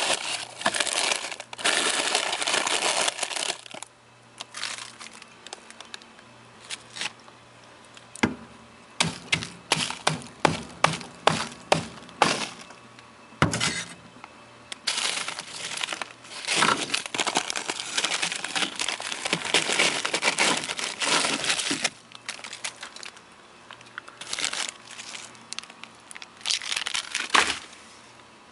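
Packed freezer frost and ice crunching and breaking as a hand digs through it, with plastic food bags crinkling. Long stretches of dense crunching, and in the middle a quick run of about a dozen sharp cracks.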